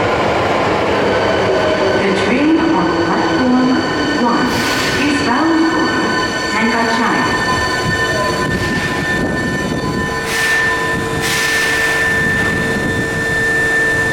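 Subway train in an underground station: wheel squeal and several short hisses of air, over a steady high electrical whine from the train's equipment.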